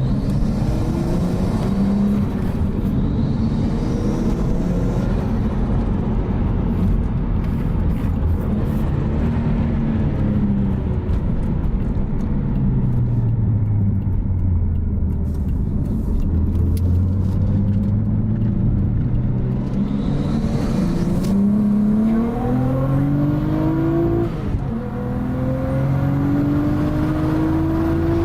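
Nissan RB25 turbocharged straight-six under way, heard from inside the car: the engine note wanders and falls, then about two-thirds of the way through climbs steadily in pitch under a hard pull, dips briefly at a gear change, and climbs again. The engine is running on freshly replaced coil packs and spark plugs, fitted to cure a misfire under boost.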